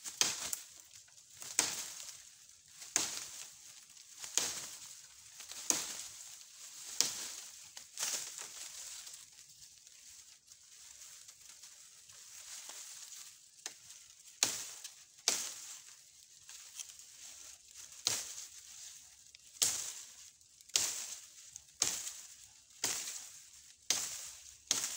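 A bolo knife hacking at bamboo, a sharp stroke about every second or so with a rustle of dry bamboo leaves after each, and a lull in the middle.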